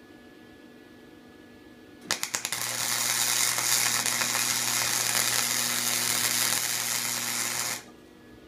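Electric arc welder welding a stacked steel billet together: a few sharp pops as the arc strikes about two seconds in, then a steady crackling hiss with a low buzz for about five seconds, cutting off suddenly when the arc is broken.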